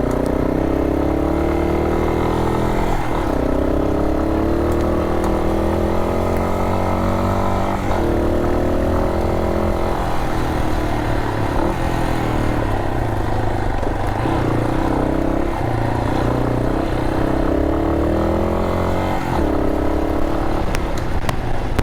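Yamaha Serow 250's single-cylinder engine riding a gravel forest track. It rises in pitch under throttle and drops sharply about four times as the rider shifts or eases off.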